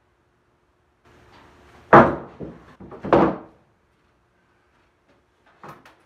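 A heavy wooden workbench top thudding down onto its wooden leg frame: two loud thumps about a second apart. A few light knocks follow near the end as it is shifted into place.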